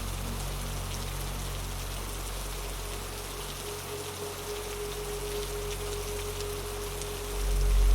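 Steady rain falling, an even hiss of drops, over a low droning dark-ambient pad. A single held tone comes in about halfway through, and the low drone swells sharply near the end.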